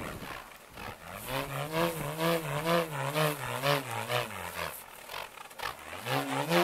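Bullroarer swung overhead on a cord: a humming roar whose pitch rises and falls with each turn, about two turns a second. It starts faintly, sinks in pitch and fades about two-thirds through as the swing slows, then picks up again near the end.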